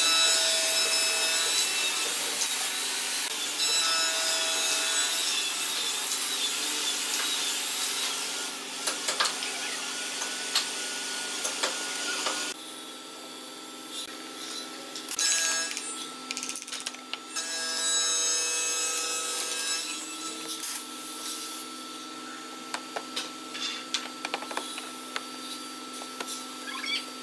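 Handheld belt sander running across a wooden panel: a steady rasping with a high, wavering whine, which cuts off about twelve seconds in. Quieter workshop sound follows, with scattered light wooden taps and clicks as a panel and frame pieces are fitted together.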